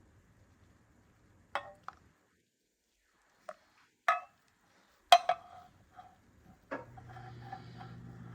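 A few sharp clinks and knocks of a metal milk pitcher against a cup and counter, the loudest about five seconds in. Near the end a steady low hum starts and keeps on.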